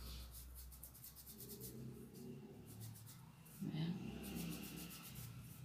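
Faint, quick scratchy strokes of a small brush rubbing pink pastel onto a cut-out craft piece to shade a cheek, coming in short bursts.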